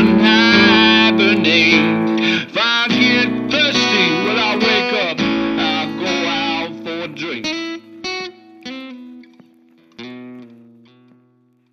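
Closing bars of a guitar-band song: the full band plays on, then thins out to a few single plucked guitar notes, the last one, about ten seconds in, fading out.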